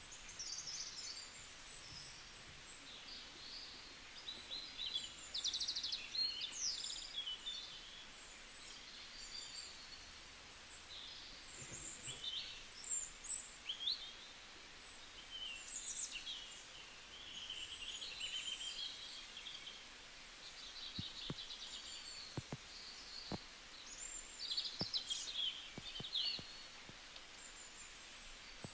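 Several birds chirping and calling: many short chirps, quick whistled glides and trills, over a faint steady background hiss. A few faint taps come in the second half.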